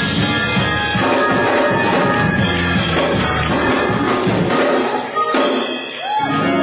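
Music with drums, played loud and continuous; about five seconds in, the bass drops away.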